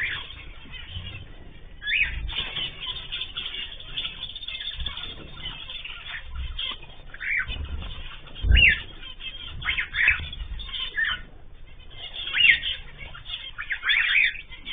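Caged ornamental birds calling: a steady chatter with a dozen or so short, sharp chirps scattered through it, some gliding in pitch, and a few low thumps, the loudest about halfway through.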